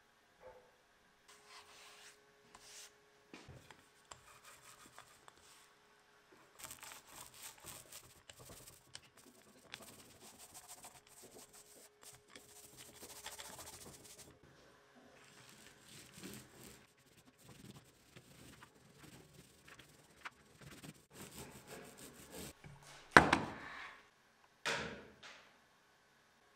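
A hand rubbing over the MDF panel of a speaker cabinet, in irregular scratchy strokes like hand-sanding. Two loud knocks come near the end, the first the louder.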